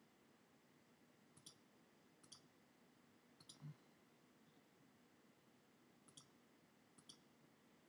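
Near silence broken by a handful of faint, sharp clicks spread out, like small desk clicks. One of them, a little over three and a half seconds in, comes with a soft low knock.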